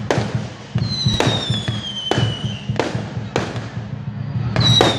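Fireworks going off: sharp bangs about once a second, along with a whistling firework whose high whistle falls slowly in pitch for about two seconds. Another whistle starts near the end.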